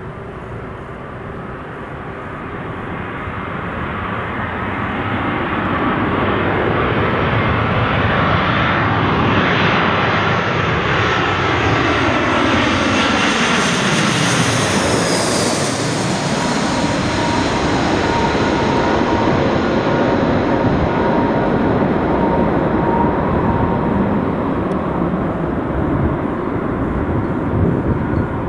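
Airbus A320-232 jet airliner with IAE V2500 turbofan engines flying a landing approach. Its engine noise grows louder over the first few seconds, then sweeps in pitch as it passes overhead about halfway through, and stays loud as it heads for the runway.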